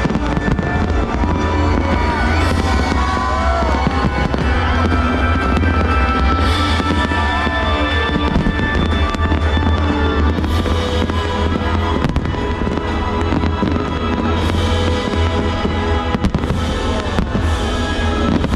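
Fireworks display: a continuous low rumble of booms with crackling and sharper bursts every few seconds, with music playing under it.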